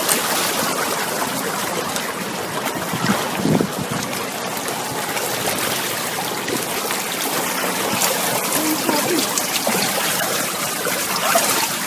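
Floodwater rushing and sloshing close by, a steady wash of water noise.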